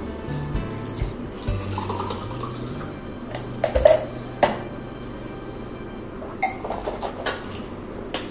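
Water poured from a plastic bottle into a glass mug, with a few short knocks and clinks of the glass and bottle being handled and set down, over quiet background music.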